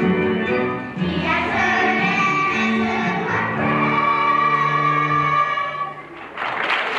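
Children's choir singing with low accompanying notes, ending on a long held note; the singing stops about six seconds in and applause begins.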